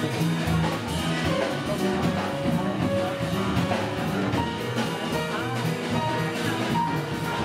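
Jazz music played by a band, with a steady bass line under the melody.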